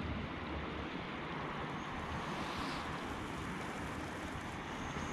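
Steady wind noise buffeting the microphone, over an even hiss of wind and lapping water.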